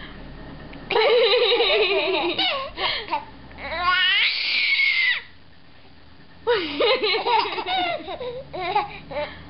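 A 17-week-old baby laughing and squealing in two bouts with a short pause between, including one long high-pitched squeal about four seconds in.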